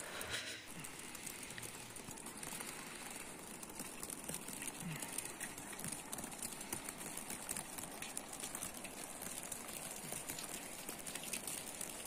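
Outdoor ambience of falling wet snow settling on leaves and ground: a steady soft hiss with fine, quick ticking throughout.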